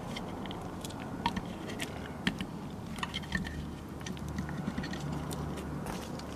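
Small scattered clicks and rubbing as thumbs bend a polymer arm and press its head into a notch on a Merkel RX Helix rifle's action.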